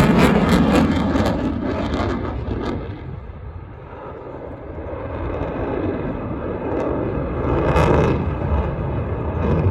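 F-35 fighter's single F135 turbofan jet engine, loud and crackling at first, fading to its quietest about four seconds in, then swelling again to a peak near eight seconds.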